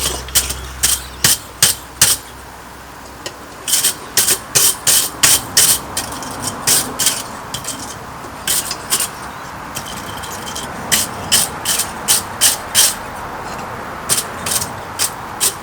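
Hand hammer striking steel on an anvil as the end of an old ring spanner is forged into a bottle opener: runs of sharp, ringing blows, about three a second, broken by short pauses.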